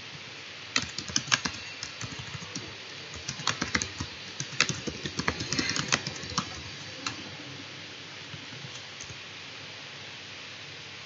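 Typing on a computer keyboard: an irregular run of quick key clicks that stops about seven seconds in, over a steady hiss.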